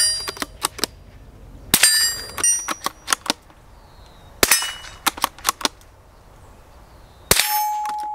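Springfield 2020 Rimfire bolt-action .22 LR rifle fired three times, about two and a half seconds apart. Each sharp crack is followed by a few small clicks and a metallic ringing. After the last shot the ring carries on as a steady tone.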